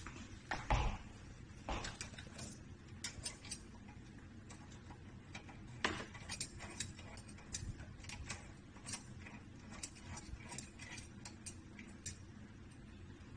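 Small irregular metallic clicks and taps from a braided stainless steel water hose's nut being handled and threaded by hand onto an angle valve, with a couple of louder knocks, one about a second in and one near six seconds.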